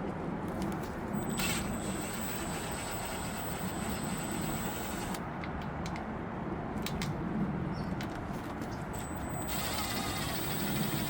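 A power tool, likely run on engine fasteners, whines high and thin for about four seconds starting about a second in, then again near the end, over a steady low hum.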